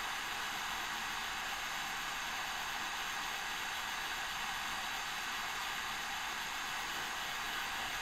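Hot air rework station blowing a steady, even hiss of hot air from its nozzle while reflowing solder paste on a circuit board.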